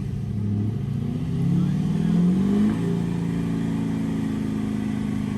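A vehicle engine revving up: its pitch climbs for about two seconds, then holds steady at high revs. The vehicle is stuck in sand and is being driven to break free.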